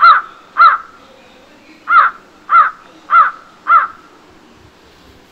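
A crow cawing: two harsh caws, a pause of about a second, then four more a little over half a second apart.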